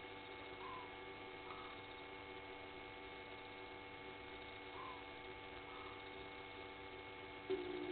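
Steady electrical hum with faint night ambience: soft short chirps in pairs about every four seconds, and a brief louder low-pitched sound right at the end.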